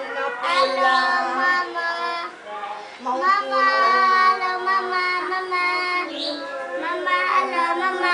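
A child singing a song in long held notes, with a short break about two and a half seconds in.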